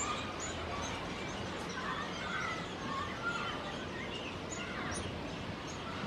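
Nestling songbirds begging with short, thin, high peeps repeated about twice a second in runs, with scattered lower chirps over a steady background hiss.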